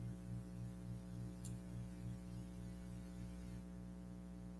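Steady low electrical mains hum with a slight regular pulsing, and one faint click about a second and a half in.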